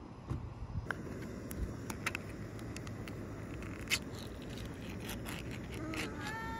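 Ring-pull metal lid of a canned-ham tin being pulled and peeled back: scattered scraping and clicking, a sharp click about four seconds in, and a few short squeaky notes near the end.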